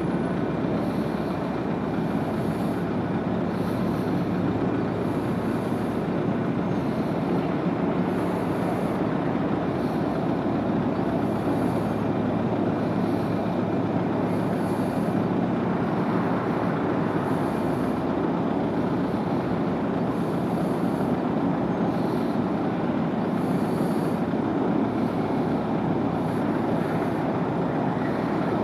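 Large RO-RO car carrier's diesel engines and funnel exhaust giving a steady, even rumble and hiss as the ship leaves port. A faint high hiss pulses about once a second.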